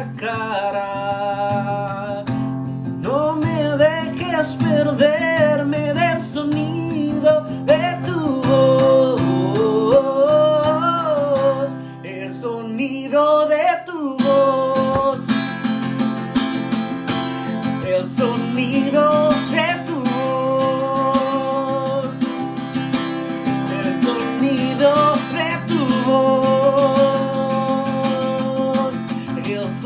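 Acoustic guitar accompanying a solo singing voice in a slow worship song. The voice holds long, wavering notes over the chords, with a brief softer moment about halfway through.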